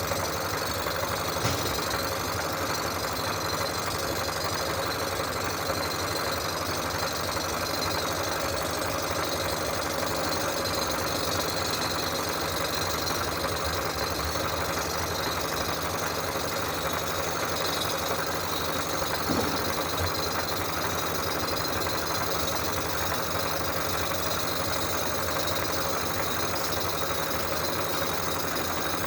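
Cylinder-head surfacing machine running steadily, taking a cut of about five thousandths off the exhaust face of an Oldsmobile V8 head to true up its low spots.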